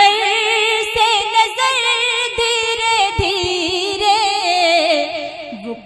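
A woman singing an Urdu ghazal in tarannum style into a microphone, drawing out long melismatic notes with a wavering vibrato. The note falls away just before the end.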